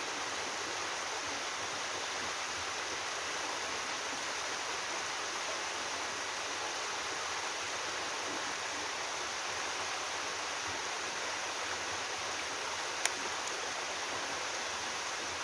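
Water sliding and cascading steadily down a three-tier sloping-rock waterfall in a mountain stream, an even rushing hiss. One sharp click near the end.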